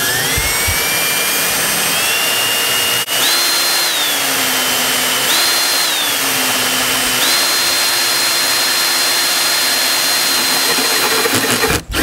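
Cordless drill with a hole saw spinning at low speed as its pilot bit starts into the wood. The motor whine rises as it spins up, steps up and down in speed a few times as the trigger is eased, holds steady, then stops just before the end.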